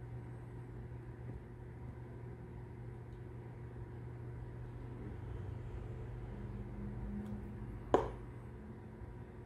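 Room tone with a steady low hum, and a single sharp click about eight seconds in.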